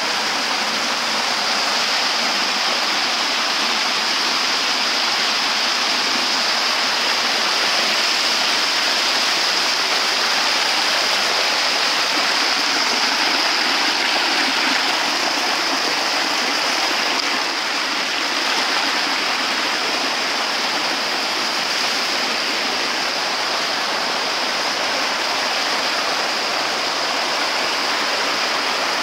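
Small waterfall: shallow creek water rushing steadily down a sloping rock cascade, white water running right under the microphone.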